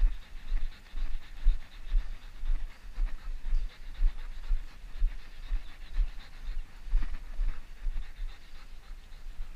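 A Belgian Malinois panting, with steady low thuds about twice a second.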